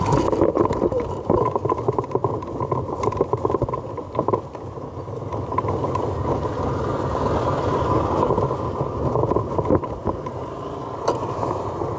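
Motor scooter running on the move, a steady muffled rumble with a faint thin whine, with wind and scattered clicks and rustles of the phone being handled.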